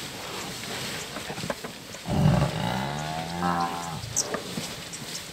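A Cape buffalo gives one long, low bellow about two seconds in, lasting about two seconds, its pitch dropping toward the end.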